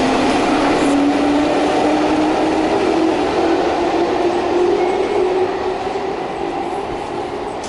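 Keihan electric train pulling away in an underground station: its traction motors whine with a single tone that climbs slowly in pitch for about five seconds, then fade into the steady rumble of the station.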